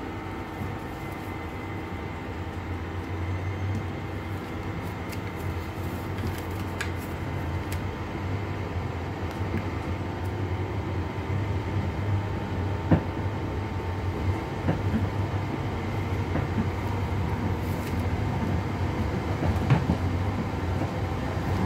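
Class 323 electric multiple unit heard from inside the passenger saloon while running: a steady electric whine over a low rumble, slowly getting louder. A couple of sharp single knocks from the wheels on the track come about two-thirds of the way in and near the end.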